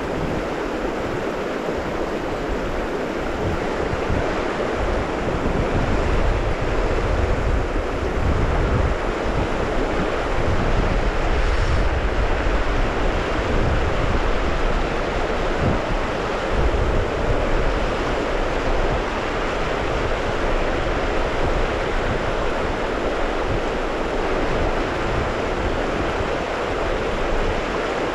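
Steady rush of a river rapid, a loud even hiss of fast water, with wind buffeting the microphone in low rumbles that are heaviest through the middle.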